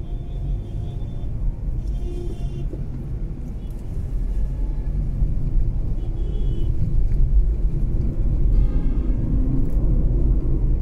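A car on the move, a Mazda 3: a low, steady rumble of road and engine noise that gets louder about four seconds in, with a few brief faint higher tones over it.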